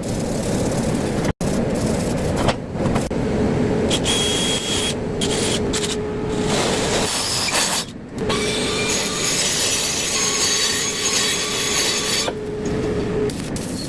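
Angle grinder grinding on a steel pipe: a steady grinding noise with a faint steady motor tone, broken by several abrupt cuts.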